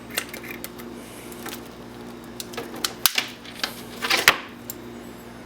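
Light clicks and rattles of a car windshield wiper switch being pulled apart by hand to get at its brass parts, with a louder clatter about four seconds in.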